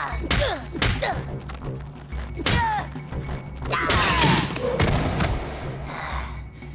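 Fists thudding into a heavy punching bag, several hard blows, over background music. About four seconds in comes a louder crashing burst as the bag's ceiling mount tears loose.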